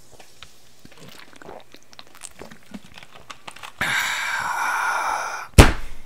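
A person taking a drink: faint small mouth and handling sounds, then a breathy rush lasting about a second and a half, then a single loud knock near the end.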